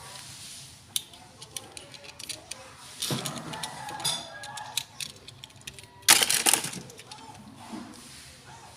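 Irregular small clicks, taps and rattles of hard plastic being handled, with louder rustling bursts about three seconds in and, loudest, about six seconds in.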